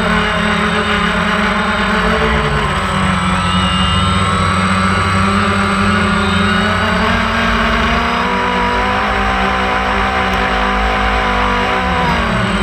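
DJI Phantom 1 quadcopter's four electric motors and propellers whining in flight, heard up close from a camera mounted on the drone. Several tones drift up and down in pitch as the motors change speed, dipping briefly near the end.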